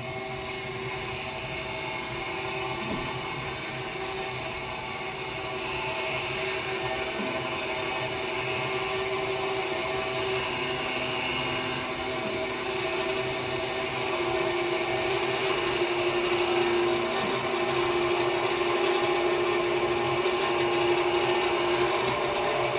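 Gardner Model 1015 surface grinder running steadily, its spindle motor and wheel giving a continuous hum with a higher hiss that swells and fades about every five seconds.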